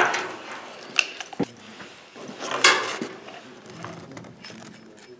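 Handling clatter of a Bauer electric dual-action polisher being taken apart: a few sharp clicks and knocks of metal and plastic parts, and a short scraping rattle about two and a half seconds in, as the spindle and counterweight are turned by hand.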